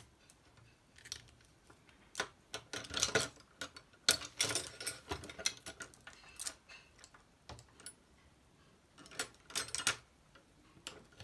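Rummaging through painting supplies in search of a thinner brush: scattered light clicks and rattles in clusters, busiest from about two to five seconds in and again near the end.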